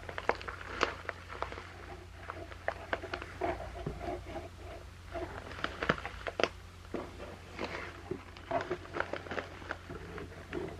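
Paper tea bags and a cardboard box being handled: irregular crinkling and rustling with small taps and knocks.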